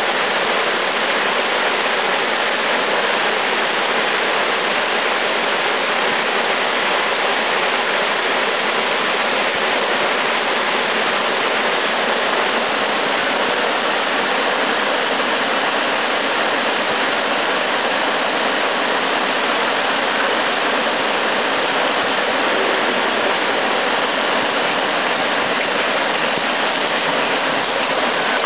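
River rapids rushing: a steady, even roar of white water with no change in level.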